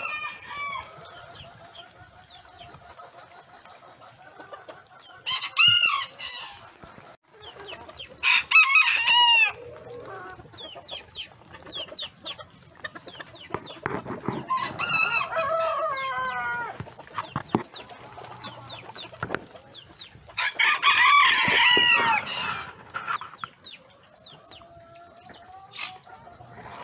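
Bantam roosters crowing four times, one long crow after another, with chickens clucking more softly between the crows.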